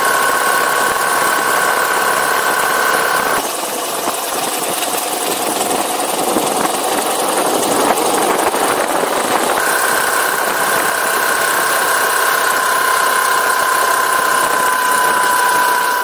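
Suzuki VanVan 200 motorcycle's single-cylinder engine running while riding, with wind rushing past. A steady high whine sits over it, drops away for several seconds starting about three seconds in while the rushing noise grows louder, and then comes back.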